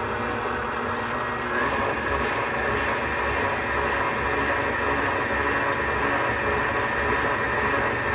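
Electric mixer motor running steadily as it mixes a soft roll dough, a constant hum and whine with a higher whine joining about a second and a half in.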